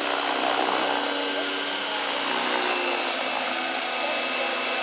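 Align T-Rex 600 radio-controlled helicopter coming in low and touching down, its motor and spinning rotor giving a steady whine. The pitch steps up slightly about halfway through, once the model is on the ground.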